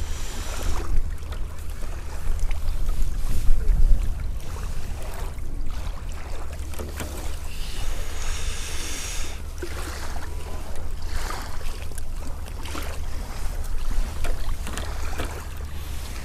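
Wind buffeting the microphone, a steady low rumble that is strongest in the first few seconds, with scattered light clicks and a brief rustle.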